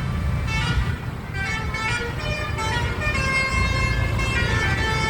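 Bus 'telolet' horn playing a tune of several held notes that change pitch in steps, over a low engine rumble.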